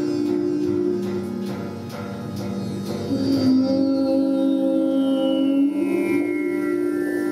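Live improvised experimental music from a noise ensemble: a bed of sustained droning tones, with scattered clicks in the first few seconds and a high tone that slides slowly downward in the second half.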